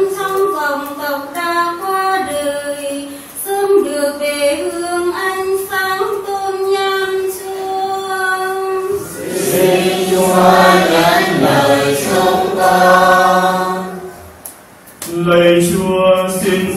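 Church choir singing a hymn. Higher voices carry the melody at first; about halfway through, lower voices join and the singing grows fuller and louder, then it breaks off briefly near the end before resuming.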